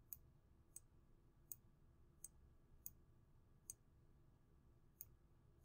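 Faint, sharp clicks at the start of each pen stroke as handwriting is drawn on a computer screen, about one every 0.7 s, with a longer pause past the middle. Otherwise near silence.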